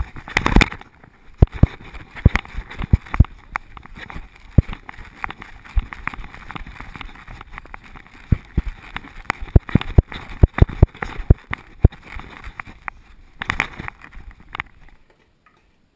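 Irregular clicks, knocks and rubbing from an action camera worn on a dog as the dog moves about, the mount knocking and scraping with each movement, with louder bursts about half a second in and near the end. The sound cuts off suddenly about 15 seconds in.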